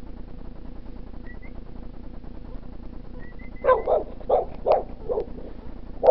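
A dog barking in a quick run of short barks, about three a second, starting a little past halfway, over steady low background noise.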